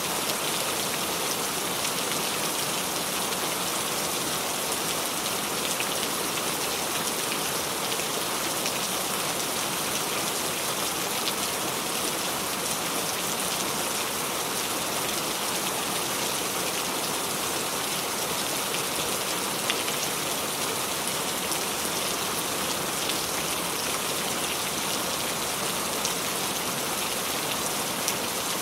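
Steady rain falling, an even hiss of many drops with faint scattered individual drop ticks on a surface.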